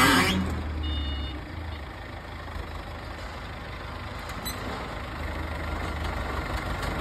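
A heavy vehicle's engine running at low revs, with one short high beep about a second in.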